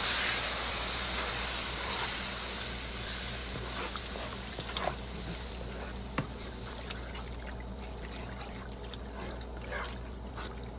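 Chicken broth pouring in a steady stream from a carton into a hot skillet of flour roux and vegetables, loudest at the start and fading as the pan fills. A few light knocks of a wooden spoon against the pan.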